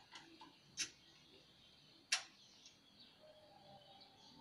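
Faint sharp clicks and taps of metal parts, three standing out and the loudest about two seconds in, as a car's hood pin switch is pushed up from below into its hole in the metal radiator-support bracket.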